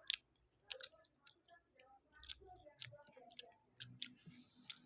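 Faint eating noises: scattered soft clicks and smacks of someone chewing a mouthful of fried rice, about a dozen irregular clicks.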